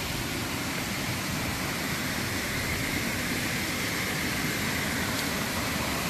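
Waterfall cascading over rock into a pool below: a steady rushing of water.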